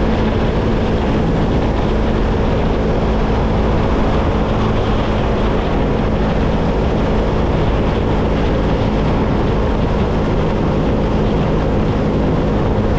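Motorcycle cruising at highway speed: a steady engine note under constant wind rush on the microphone.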